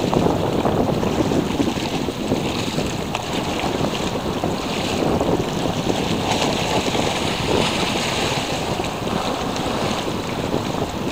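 Wind blowing across the microphone over the wash of sea waves: a steady rushing noise.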